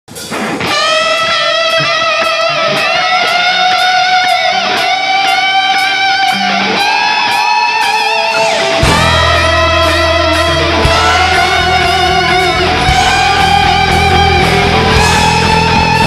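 Live rock band: an electric guitar plays a lead melody of long held, sliding notes with vibrato over a steadily ticking cymbal. Bass and a heavier low end come in about nine seconds in.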